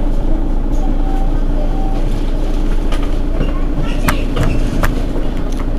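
Mercedes-Benz Citaro Facelift city bus's diesel engine idling, a steady low hum, with a few sharp clicks about four seconds in.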